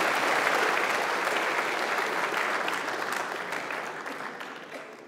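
Audience applauding, strongest at first and dying away over about four seconds.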